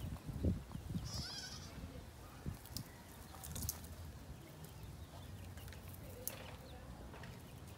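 A goat bleats briefly about a second in, among scattered rustles and light knocks from goats browsing and moving about.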